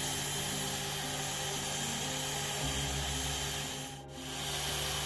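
Cordless drill spinning a sanding pad against a wood-PLA and epoxy puzzle blank turning on a lathe: a steady sanding hiss over the whine of both motors. It briefly dips about four seconds in, as the pad eases off the work.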